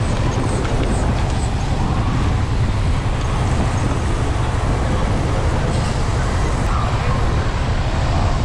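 Motorcycle running steadily at low road speed, a continuous low engine rumble with road and air noise.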